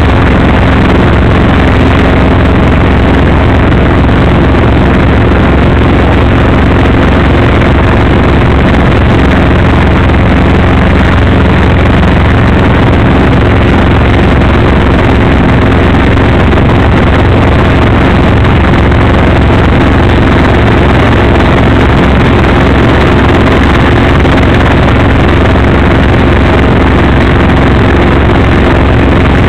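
Light helicopter's engine and main rotor running steadily in the cabin, a loud, unbroken drone with a steady hum underneath and no change in pitch.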